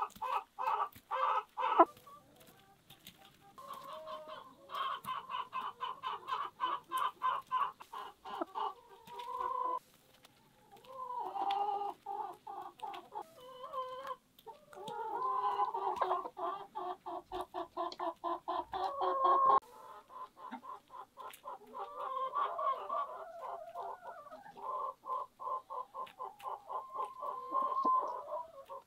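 Domestic hens clucking in quick pulsing runs while they feed, with short pauses between the runs.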